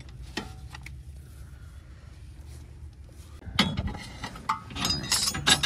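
Metal hand tools clinking and clattering against metal, a cluster of sharp clinks in the last two seconds after a few faint knocks over a low steady rumble.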